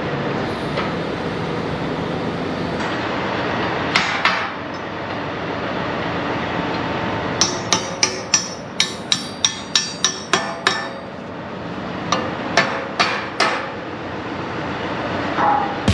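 Hammer blows on steel parts of an International 770 disc harrow being reassembled, ringing with each hit over a steady background noise. A couple of strikes come about four seconds in, then a quick run of about ten at roughly three a second, and a few more later on.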